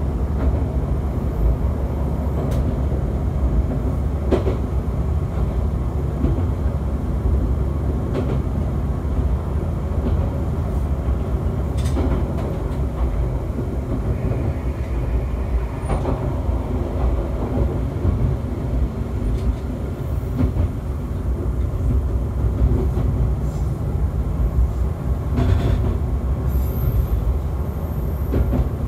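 AN-8800 diesel railcar running along the track, heard from inside the car: a steady low rumble of engine and wheels on rail, with a few sharp clicks scattered through.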